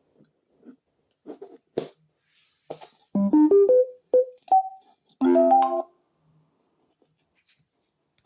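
Electronic start-up chimes from small portable Bluetooth speakers: a quick rising run of piano-like notes about three seconds in, two short single notes, then a brief chord, after a few soft clicks of handling.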